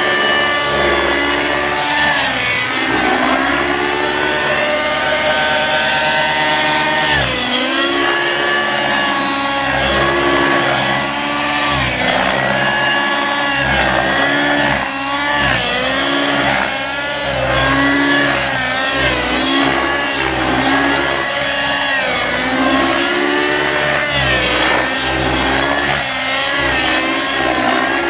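Aeolus 50 radio-controlled helicopter in aerobatic flight: its two-stroke nitro glow engine and rotor running hard, the engine note repeatedly dipping and climbing as the manoeuvres load and unload it, with quicker swings in the second half.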